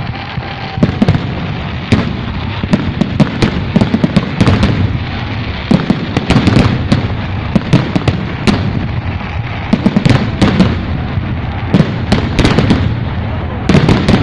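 Fireworks going off in a rapid, irregular string of sharp cracks and bangs over a continuous rumble.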